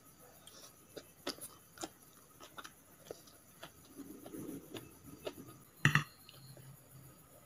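Metal fork and spoon clicking and scraping against a plate of noodles, with chewing in between. The loudest clinks come about six seconds in.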